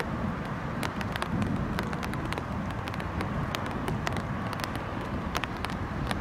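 Steady low outdoor rumble, with many sharp, irregular ticks scattered through it.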